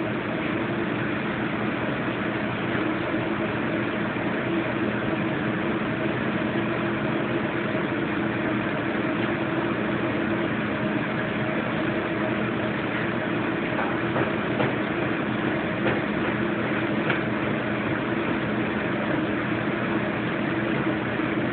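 Steady mechanical hum and hiss from a running fan or motor, with a few faint knocks in the middle.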